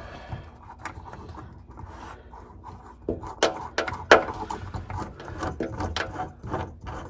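Hand-threading a knob onto the bolt of a tonneau cover's rail clamp: soft rubbing and scraping of the small parts, then a run of sharp clicks and taps from about three seconds in. The loudest click comes about four seconds in.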